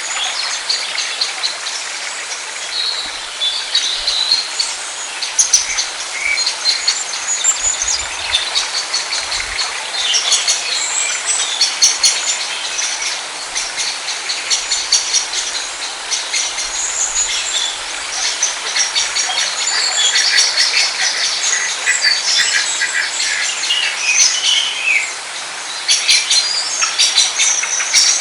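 Many small birds chirping and twittering busily over a steady background hiss.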